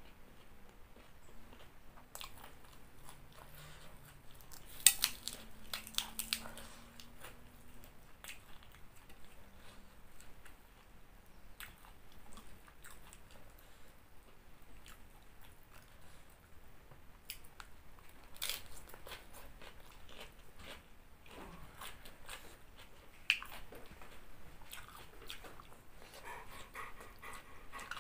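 Close-up eating sounds: a person chewing and crunching on green papaya salad and lettuce, with scattered sharp mouth clicks. The loudest crunches come about five seconds in and again past twenty seconds.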